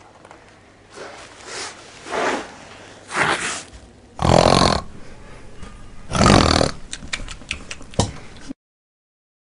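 A girl putting on a snore as she plays a sleeping dog: a run of noisy snoring breaths about a second apart, growing louder, the loudest two about four and six seconds in, then a short click and a sudden cut to silence.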